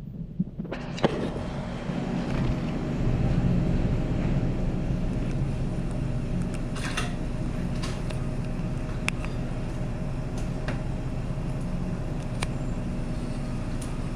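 A steady low mechanical hum with a faint steady tone running through it, and a few scattered sharp clicks and knocks.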